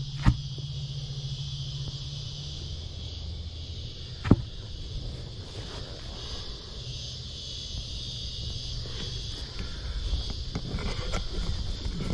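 Steady insect chorus, with a low hum underneath. Two sharp knocks break through, one just after the start and one about four seconds in, and there is rustling handling noise near the end.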